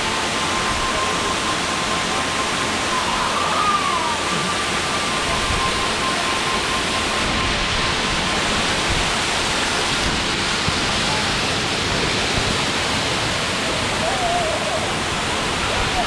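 Waterfall pouring and splashing close by: a steady, loud rushing of falling water and spray.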